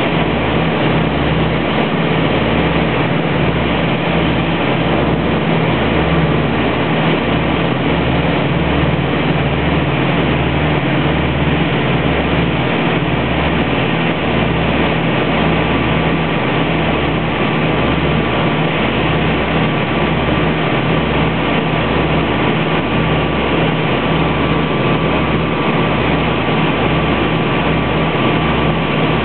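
Cabin drone of a Piper Seneca I's two Lycoming IO-360 engines and propellers in flight on approach to land. The noise is loud and steady, with a low throb that pulses about once a second.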